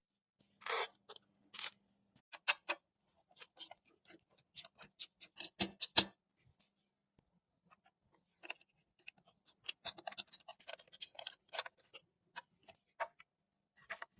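Small clicks, taps and brief rubbing of hands handling PC components during assembly, with a quiet pause in the middle and then a quick run of clicks.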